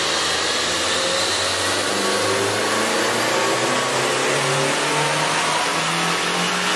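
Chevy Sonic's 1.4-litre turbocharged four-cylinder engine running hard on a chassis dyno, breathing through a K&N cold air intake, its note climbing in pitch in steps over a loud steady rushing hiss.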